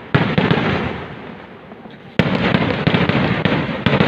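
Fireworks barrage (Kerala vedikettu): a volley of rapid loud bangs breaks out just after the start and dies away into a crackling rumble. A second volley of sharp reports follows about two seconds in.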